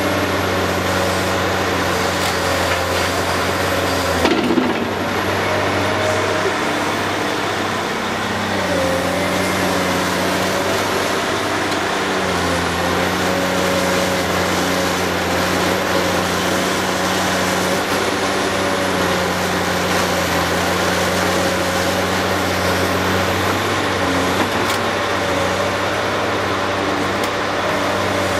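Caterpillar 385C hydraulic excavator's diesel engine running under load through a dig-and-load cycle, its pitch dipping and rising as the hydraulics swing and dig. About four seconds in there is a brief loud clatter as a bucketload of quarry rock and earth drops into the dump truck's bed.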